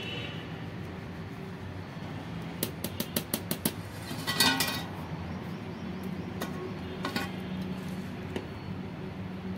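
A metal spoon stirring rice in a metal cooking pot and clinking against it: a quick run of about seven clinks a few seconds in, then a few single clinks later. A steady low hum runs underneath, and a brief pitched sound comes about halfway through.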